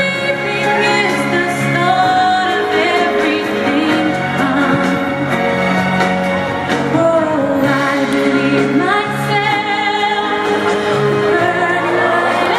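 Background music with a singing voice over held notes, playing steadily throughout.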